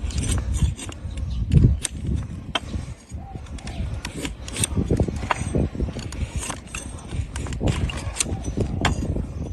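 A hoof-trimming blade cutting and paring a donkey's hard, overgrown hoof, with irregular sharp cracks and scraping as the dry horn gives way.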